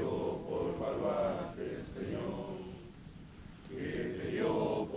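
A group of voices singing together in unison, held notes in phrases, fading in the middle and swelling again near the end.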